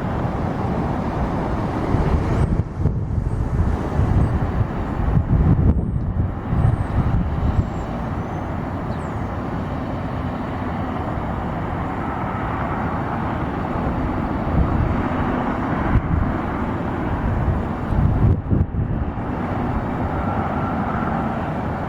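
Outdoor rumbling background noise that swells and eases in irregular gusts.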